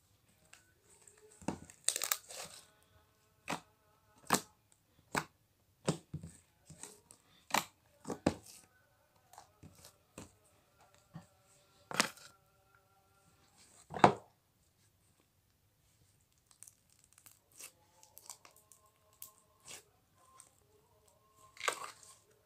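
Homemade marshmallow slime being squeezed, stretched and poked by hand for ASMR, giving irregular sharp pops and crackles. The loudest pops come about 2, 12 and 14 seconds in.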